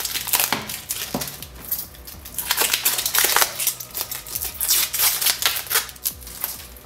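Clear plastic protective film being peeled off a tablet, crinkling and crackling in irregular quick clicks.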